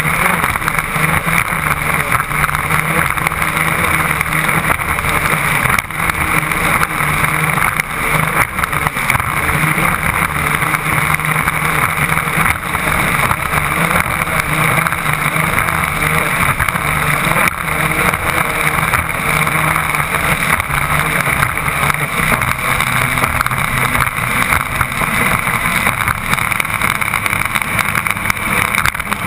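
The Stirling 34 raceboat's twin Yanmar 260 hp diesel engines running hard at speed on Arneson surface drives, mixed with the rush of wind and water. A loud, steady drone that holds the same throughout.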